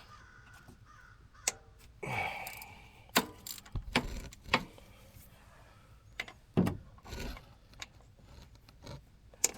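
Metal tools clicking and knocking as a wrench is worked at a tight oil filter under a side-by-side: scattered sharp clinks, with a short rasping sound about two seconds in.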